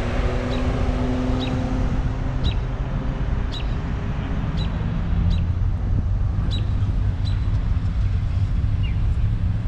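Road traffic passing: car engines running and tyres on the road, with one vehicle's steady engine hum strongest for the first couple of seconds and then fading. Wind buffets the microphone, and a short high chirp repeats about once a second.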